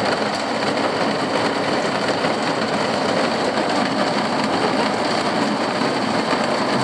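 Steady rain on the campervan's roof, an even loud hiss with no let-up.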